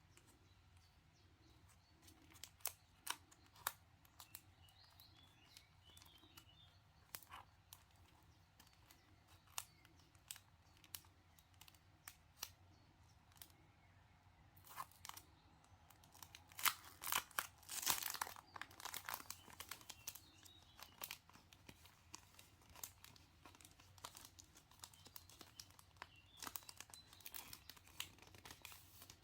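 Paper and plastic packaging being handled: scattered crinkles and small tearing sounds, with a longer burst of crinkling midway. Faint bird chirps come in through an open window.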